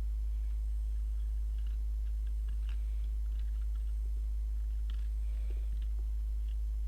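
Steady low electrical hum, with faint, scattered small clicks and taps as a phone circuit board is fitted into a PCB holder.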